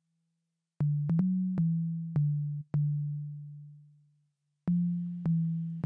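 Electronic keyboard playing a slow run of single low notes with a plain, pure tone, each note struck and then fading away. About eight notes sound, starting a second in, with a short pause after the long sixth note; a faint hiss comes in near the end.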